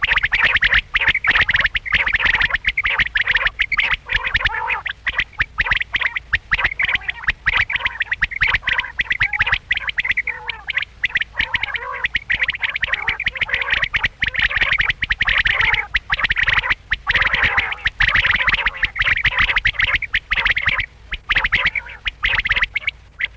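Many quail calling at once: a dense, continuous chatter of rapid, overlapping calls.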